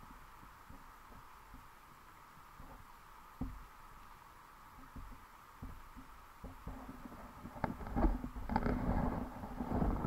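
Underwater camera sound: scattered low thumps and rumbling of water moving against the camera, growing louder and busier with some clicks in the last few seconds as the camera shifts.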